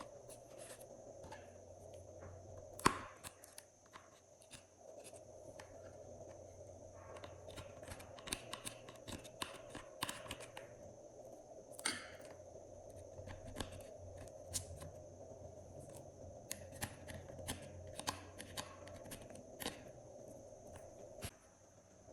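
Glossy slime being handled and mixed: scattered small sticky clicks and crackles, the sharpest about three seconds in, over a steady low hum.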